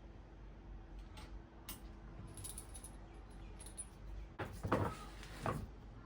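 Steel bicycle cassette sprockets clinking as they are handled and slid onto the hub, a few light metallic clicks followed by two louder rattling knocks near the end.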